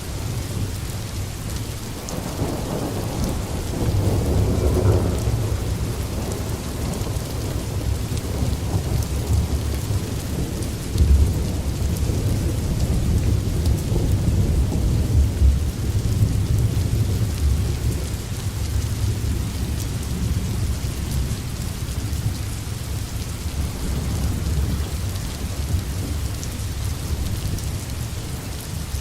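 Food frying in hot oil in a pan: a steady crackling sizzle over a low rumble, louder through the middle of the stretch.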